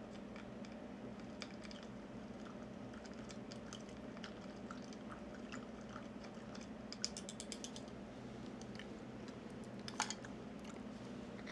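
Faint clicks and taps of a stirrer working in a large glass jar of mamajuana, the liquid soaking pieces of wood and bark. A quick run of clicks comes about seven seconds in, and a sharper knock near ten seconds.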